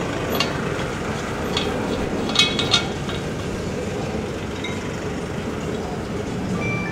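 A few sharp metallic clicks and clinks as a regulator is fitted onto an LPG gas cylinder's valve, the loudest two close together about two and a half seconds in, over steady background noise.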